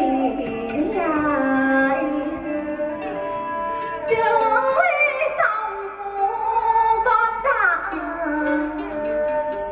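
A woman singing chèo (Vietnamese traditional folk opera) in long held, ornamented notes that slide up and down in pitch, with instrumental accompaniment.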